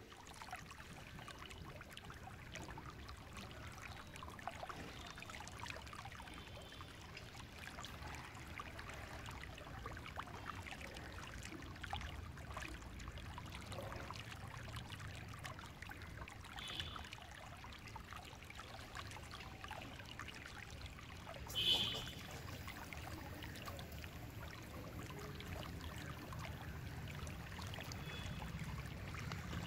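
Steady outdoor wind noise rumbling on the microphone, with a single sharp clink of stainless steel utensils about 22 seconds in.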